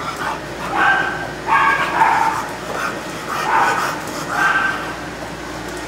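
Dogs in kennel runs barking in about four short bursts.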